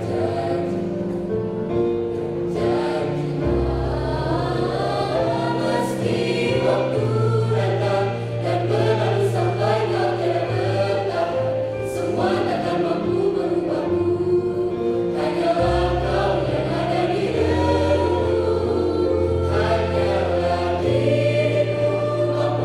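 A choir singing a song in parts, over low notes that are held for several seconds at a time.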